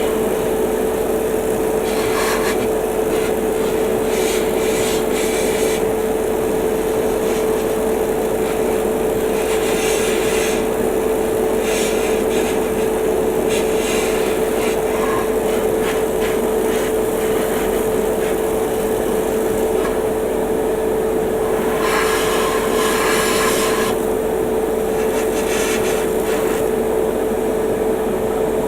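Airbrush spraying primer in intermittent hissing bursts, over the steady hum of a spray extractor fan and air compressor running.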